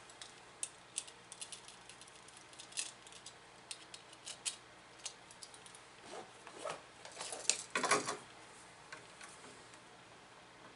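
Wire strippers and small metal parts clicking and clinking in the hands, with a busier, louder run of clicks about eight seconds in, as the red conductor is stripped for a single-pole switch.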